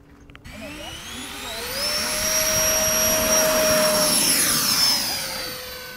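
Electric ducted fan of a radio-controlled model jet, spooling up with a rising whine and then holding a steady, loud high whine as the jet runs down the runway. The pitch dips slightly near the end as it goes past, and the sound starts to fade.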